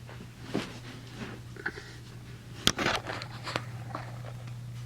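Scattered small clicks and handling knocks, with a sharper knock and brief scrape about two and a half seconds in, over a steady low hum.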